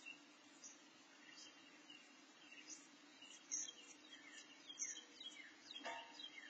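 Faint, high, thin chirps, many short and sliding down in pitch, coming thick and fast: Carolina wren nestlings begging while the adult tends them in the nest. A short rustle in the nest comes near the end.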